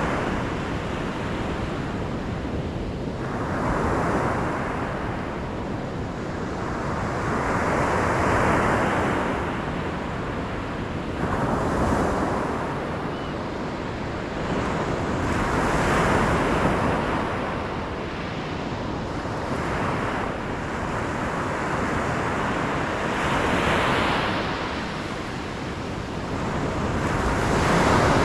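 Ocean surf: waves breaking and washing in about every four seconds over a constant low rumble of water.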